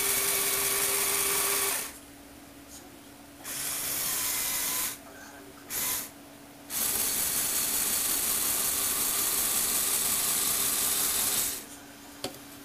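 Lego Technic motorised stand whirring in start-stop runs, its electric motor and plastic gears turning the model on it. There are four runs, the last about five seconds long, each starting and stopping abruptly, followed by a single click near the end.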